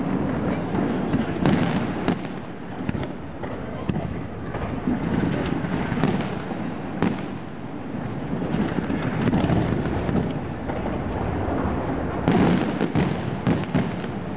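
Fireworks display: shells bursting in a string of sharp bangs over a continuous rumble and crackle, with a dense run of bangs near the end.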